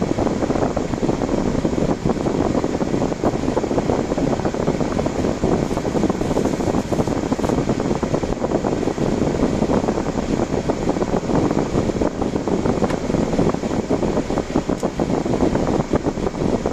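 Steady rushing noise of a car being driven, the road and engine noise heard from inside the vehicle, with no separate events standing out.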